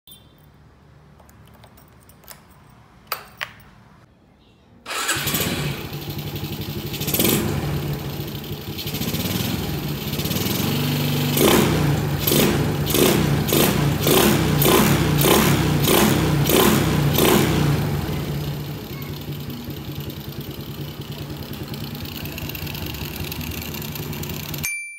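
A few clicks, then a small motorcycle engine starts about five seconds in. It is revved in a quick run of throttle blips, about two a second, and then settles into a steady idle.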